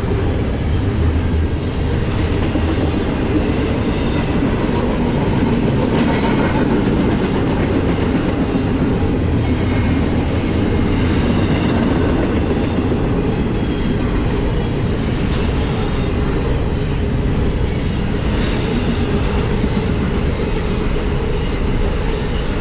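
Double-stack intermodal well cars rolling past: a steady, loud run of steel wheels on the rails.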